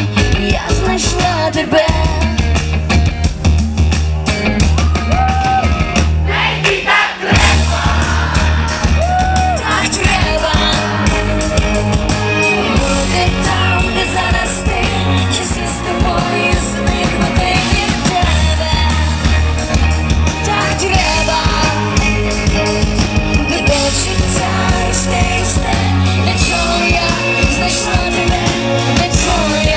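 Live pop-rock band playing, with a woman singing lead into a microphone over drums, bass and keyboards through the stage PA; the music drops out briefly about seven seconds in.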